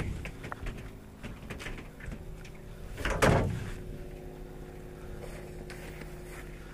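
Knocks and rustling as a person shifts about on the deck of a small fishing boat, over a steady low hum, with one loud rustling thump about three seconds in.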